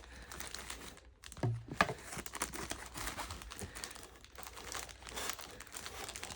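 Paper packaging crinkling and rustling as it is handled, with one sharp tap a little under two seconds in.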